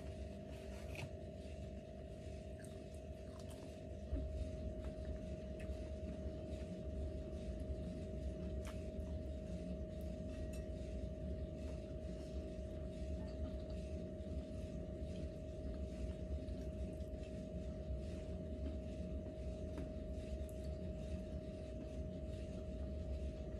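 Faint clicks and smacks of eating shrimp by hand over a steady low hum with one constant tone. The hum grows a little louder about four seconds in.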